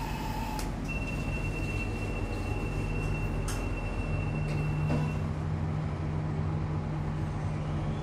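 Express Lift Co. passenger lift car running with its doors shut: a steady low hum, with a thin high whine for about four seconds in the first half and a few faint clicks.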